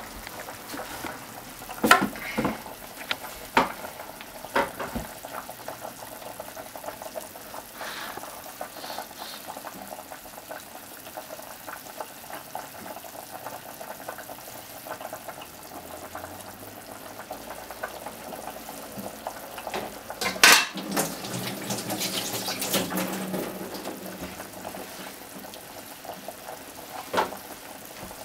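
Broth simmering in a metal pot, with several sharp clicks and knocks of kitchenware. About twenty seconds in comes a louder clatter, followed by a few seconds of heavier bubbling noise.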